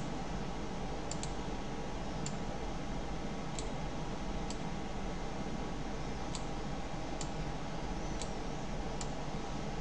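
Computer mouse clicking now and then, about nine short faint clicks at uneven intervals, over a steady background hiss and low hum.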